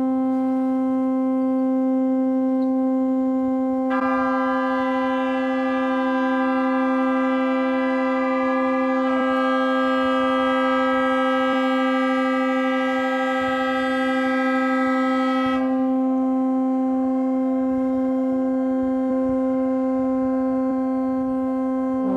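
Several moored barges' horns held in long, overlapping blasts. One steady low horn sounds throughout, a higher horn joins about four seconds in and drops out around sixteen seconds, and another low horn starts near the end.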